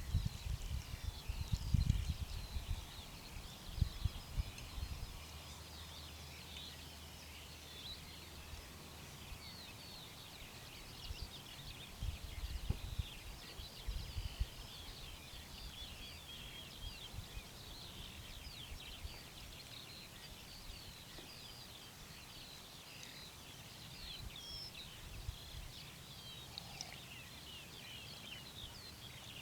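A dense chorus of small birds chirping and twittering steadily, with a few low thumps in the first few seconds and again about twelve seconds in.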